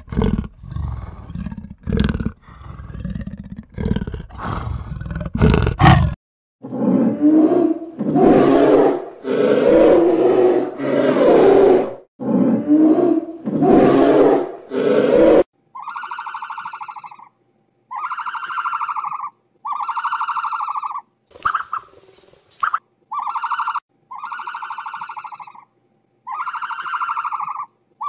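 Animal calls in three runs: a big cat's rough grunting roars about once a second, then longer, louder growls, then a run of evenly spaced high, nasal calls, each about a second long.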